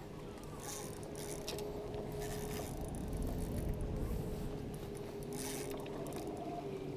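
Spinning reel being cranked in several short spurts, its gears whirring, as a hooked fish is reeled toward the landing net, over a steady low hum.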